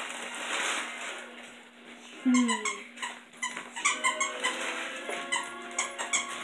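A dog at a plastic-wrapped chew bone, with runs of short, high squeaks. A loud, low sound slides down in pitch about two seconds in.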